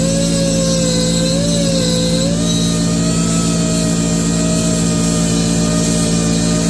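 Homemade lathe converted from a drill press running, its motor giving a steady hum with a whine that wavers slightly and settles a little higher after about two seconds.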